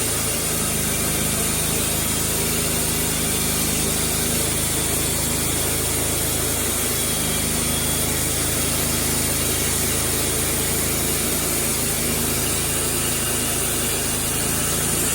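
Sawmill running steadily, its engine humming under the hiss of the saw cutting through a log.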